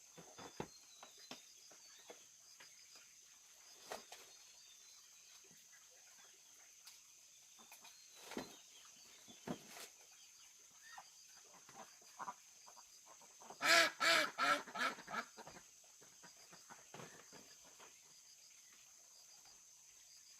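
A domestic fowl calls in a quick run of about five harsh calls, about two thirds of the way in, over a steady high insect-like hiss and scattered light knocks.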